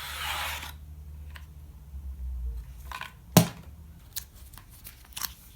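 Handling of product packaging during an unboxing: a short rustling slide at the start, then a single sharp click a little past the middle.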